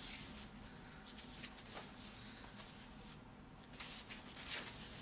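Faint rustling and a few soft knocks of a cardboard poster board being turned over in the hands, over a low room hiss.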